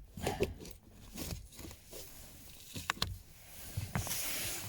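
Plastic clicks, knocks and rustling as the cabin air filter cover under a VW Tiguan's glove box is worked loose and taken off. The sharpest clicks come about three and four seconds in, with a short rustle of plastic near the end.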